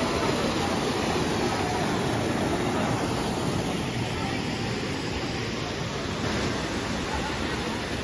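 Mountain stream rushing steadily over rocks and a small cascade, a continuous even roar of water.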